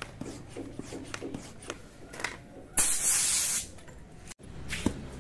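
Light clicks and taps of a hand pump being fitted to a bicycle tyre valve, then one loud hiss of air, just under a second long, about three seconds in.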